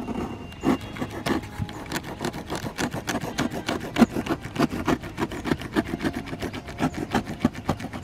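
Utility knife sawing through corrugated cardboard: a quick, uneven run of scratchy cutting strokes, several a second.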